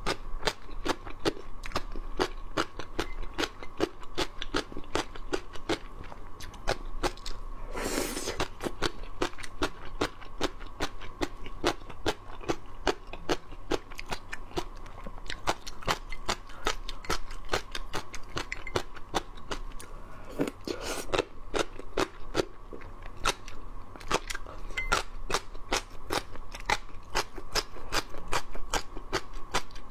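Close-miked crunching and chewing of crisp gongcai (celtuce stem strips), a rapid run of sharp crunches several times a second, with two longer noisy stretches about 8 and 21 seconds in.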